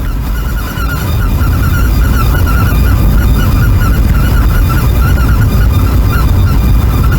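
Car driving along with a rapid, repeating high-pitched squeak over the road and engine noise, a squeal that grows with speed. The owner traced it to a damaged protective dust-shield plate in the steering knuckle rubbing, rather than the alternator belt.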